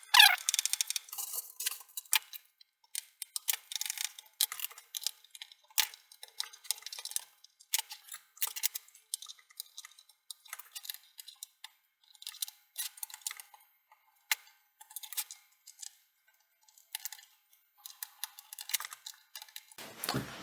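Irregular light clicks and ticks of a small screwdriver working screws out of a laptop's plastic bottom case, with a short squeak right at the start.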